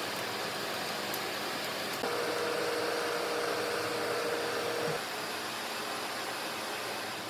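A steady whirring hiss of a motor-driven machine running. From about two seconds in to about five seconds a steady hum joins it and it gets a little louder.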